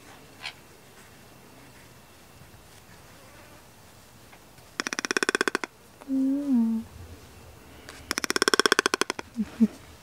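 Toco toucan giving two short, buzzy rattling calls, each under a second long and about three seconds apart, with a soft, low, wavering note between them.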